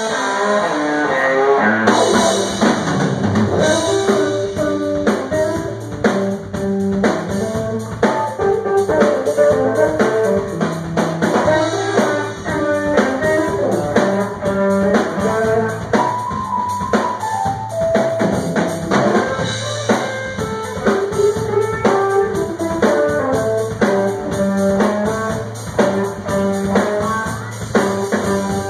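Live band playing an instrumental rock number: electric guitar and keyboard lines over bass and a drum kit.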